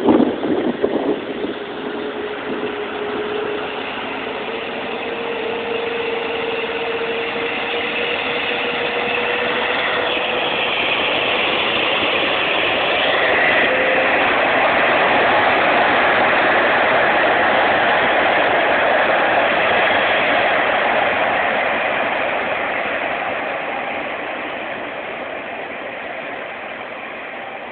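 Airbus A380's four turbofan engines during the take-off roll: a broad, steady jet noise with a faint tone rising slightly in pitch over the first several seconds, swelling to its loudest about halfway through and then fading as the aircraft moves away.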